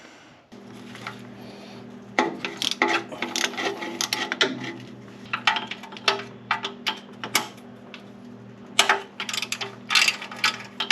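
Hand tools working on metal: a ratchet clicking and steel bolts and tools clinking, in quick irregular clicks, over a steady low hum.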